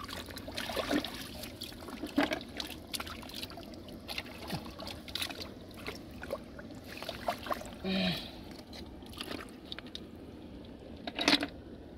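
Hands splashing and sloshing in shallow muddy water, with small irregular splashes and trickles as snails are picked out, and a louder splash near the end.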